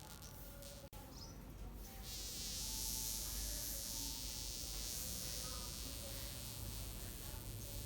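A wasp with droopy wings buzzing and unable to fly. The buzz cuts out for a moment about a second in and grows louder and higher-hissing about two seconds in.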